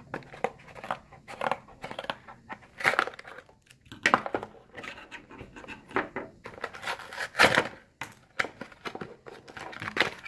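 Scissors snipping into a cardboard trading-card box, then hands tearing and crinkling its cardboard and wrapping open in a string of irregular rips and rustles, the loudest about seven and a half seconds in.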